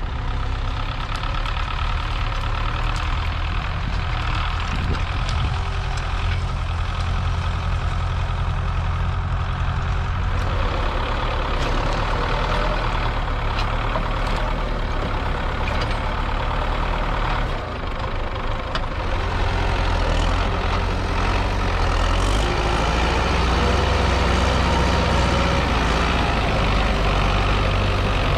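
MTZ-82 tractor's four-cylinder diesel engine running steadily, with a brief dip about two-thirds of the way through and then running somewhat louder.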